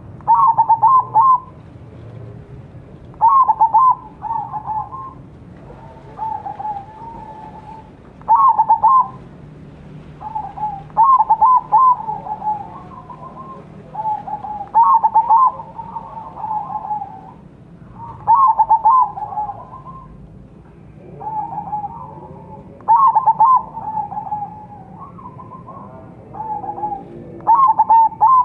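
Crossbred zebra dove (perkutut) cooing: a loud, staccato run of three or four rapid notes about every three to four seconds, with softer cooing phrases in between.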